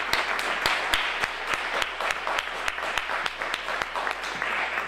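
Audience applauding steadily, with individual sharp claps standing out from the overall patter.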